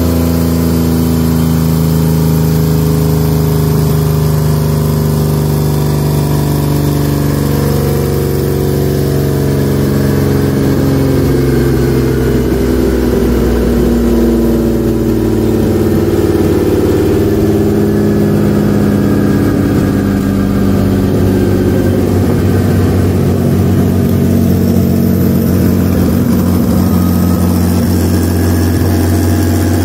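Turbocharged BMW 323i engine running steadily on a chassis dynamometer, its pitch shifting and unsettled for a few seconds in the middle before settling into a steady run again.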